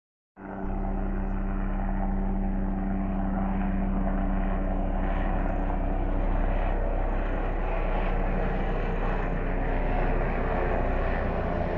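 Helicopter flying overhead: a steady drone of engine and rotor.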